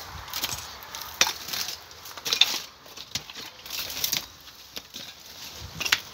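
Footsteps crunching over rubble and broken debris, with irregular sharp clinks and crackles roughly once a second.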